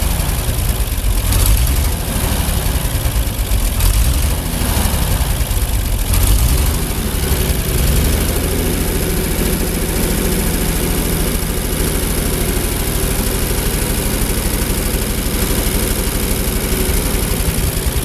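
Ford 8N tractor's four-cylinder flathead engine running at idle, its speed surging up and down a few times before settling into a steady run. The surging is erratic governor action, which the owner puts down to the carburetor freezing while the engine warms up.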